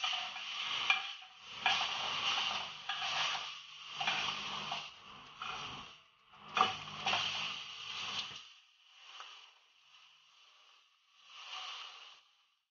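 Steak sizzling in a hot stainless steel frying pan. The sizzle swells and fades in repeated waves as the meat is laid in and turned with tongs, and grows weaker after about eight seconds.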